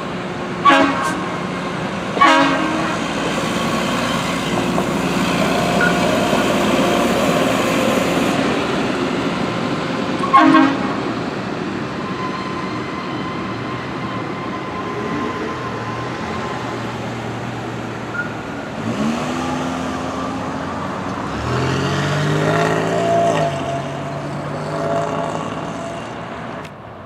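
CSX maintenance-of-way rail equipment rolling over a grade crossing with a steady rumble, broken by three sharp bangs that ring briefly in the first ten seconds. Later an engine revs up, rising in pitch.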